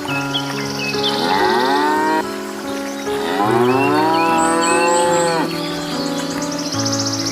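Cow mooing twice, a shorter call and then a longer one that rises and falls in pitch, over soft background music with steady held tones.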